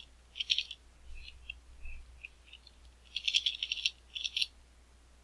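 Computer keyboard keys clicking in short quick runs: a brief flurry about half a second in, then a longer run around three seconds in and a few more strokes just after.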